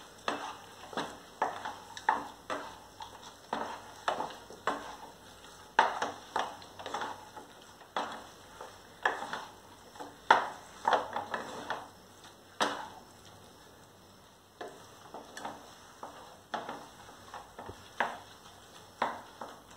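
Spatula stirring and scraping a thick singhara-flour barfi mixture in a non-stick kadhai, in short, irregular strokes about once or twice a second, with a brief pause past the middle. This is the final stir, cooking the dough until the ghee separates.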